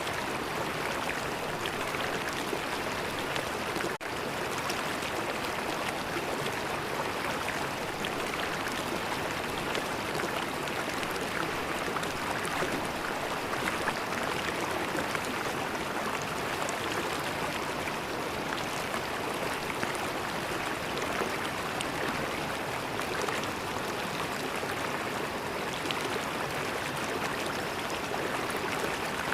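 River water flowing steadily, a constant rush of water, with a brief dip in loudness about four seconds in.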